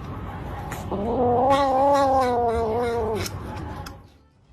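A cat giving one long drawn-out yowl of about two seconds, its pitch rising slightly and then falling away.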